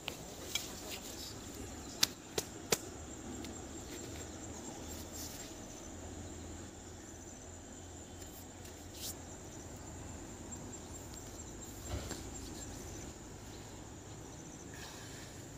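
Riverside ambience: a steady high-pitched insect trill runs throughout, broken by a few sharp clicks, three of them loud in the first three seconds and fainter ones later.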